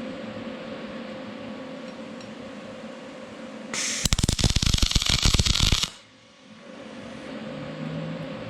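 Spool-gun MIG arc on aluminum with 4043 wire, a rapid crackling buzz for about two seconds, starting near the middle and cutting off sharply: a single tack weld. A steady low hum before and after it.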